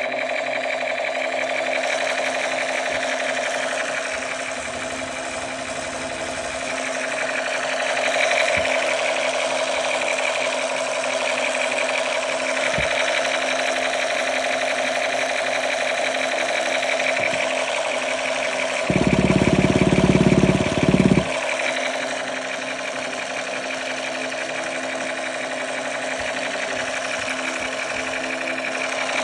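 A small motor buzzing steadily with a rapid rattle. About two-thirds of the way through, a louder low rumble lasts about two seconds.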